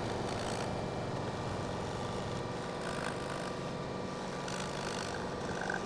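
Steady background room noise: an even hum and hiss with no distinct events.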